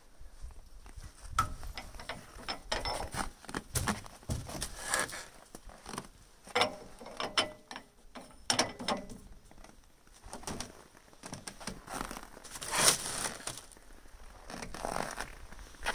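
Irregular clicks, creaks and short scrapes of a gloved hand working parts on top of a Saurer Berna 2DM truck's diesel engine, with the loudest clatter near the end.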